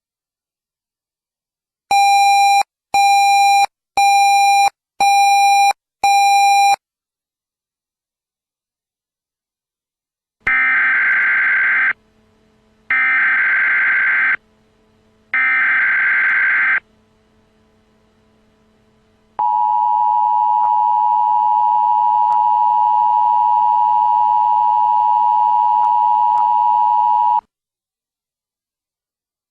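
Emergency Alert System broadcast tones for a tornado warning. First come five short electronic beeps, then three harsh data bursts of the SAME digital header, each about a second and a half long, which carry the alert type and area to receivers. Last comes the steady two-tone EAS attention signal, held for about eight seconds.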